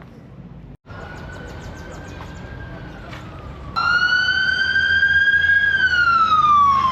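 Emergency vehicle siren wailing: one pitched tone that comes in faintly about a second in, grows much louder partway through, and slowly falls in pitch near the end.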